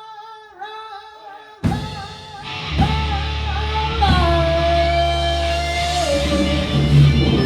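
A rock band playing: a lone sustained lead line with wavering pitch, then the full band with drums and bass comes in about a second and a half in. The lead holds one long note that slides down in pitch near the end.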